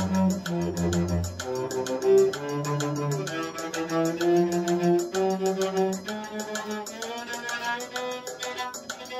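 Cello being bowed, playing a slow melody of held notes that climbs from the low register toward higher notes.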